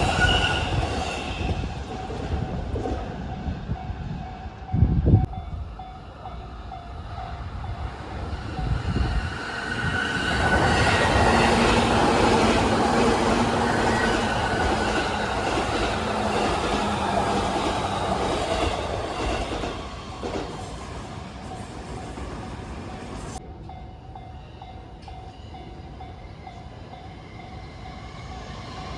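Saikyo Line E233-series electric train running over the tracks at a level crossing, its wheels clattering on the rails. It is loudest from about ten seconds in and fades after about twenty seconds.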